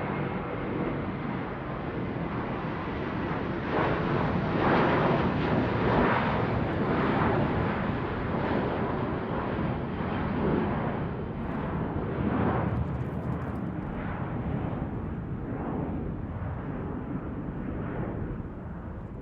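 An airplane passing overhead: a deep, noisy rumble that swells to its loudest about five seconds in and then slowly fades away.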